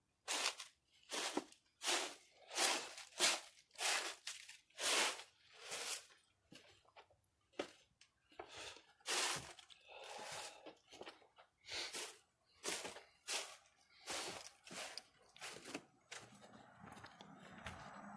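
Footsteps at a walking pace crunching over dry fallen leaves, about one step every 0.7 seconds. Near the end the steps fade under a steady hiss with a low hum.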